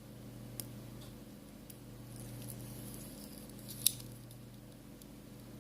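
Home button of an iPhone 5s display assembly being pressed to test it: a few faint clicks, one sharper click near the four-second mark, over a steady low hum.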